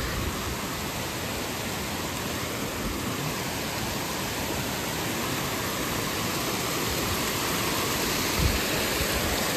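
Steady rushing of running water, an even hiss with no pauses; a soft thump about eight and a half seconds in.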